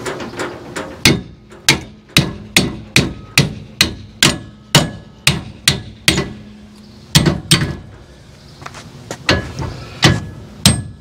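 Small sledgehammer striking steel angle iron clamped in a hitch-mounted vise: a fast run of hard metal-on-metal blows, about two a second, then a pause and a second, more broken run of blows. A ringing note hangs after the strikes. The pounding tests whether the vise's screw loosens under a beating.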